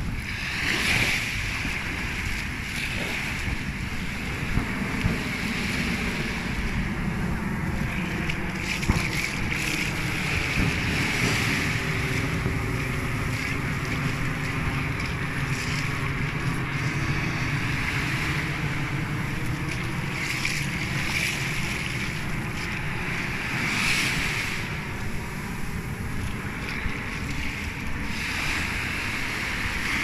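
Small waves washing up onto a sandy beach and drawing back, the foamy hiss swelling every few seconds over a steady low rumble.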